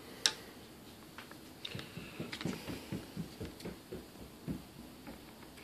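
Hands working a roll of clear, sticky hinge tape along a model glider's elevator hinge line: a sharp click about a quarter-second in, then soft scattered ticks and rustles as the tape is drawn off and pressed down.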